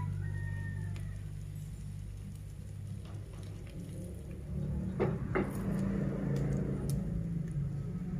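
Eggs and peanuts frying in a pan, with a steady low hum under it and a few sharp taps of a metal fork on the pan, the loudest two close together about five seconds in.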